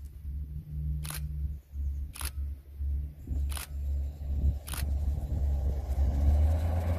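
Class 158 diesel multiple unit approaching, its low drone growing louder toward the end. Four sharp clicks come about a second apart through the middle.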